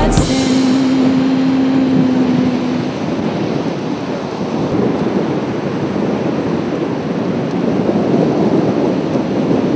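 Ocean surf breaking and rushing, with wind buffeting the microphone. A single steady low tone sounds for the first three seconds or so.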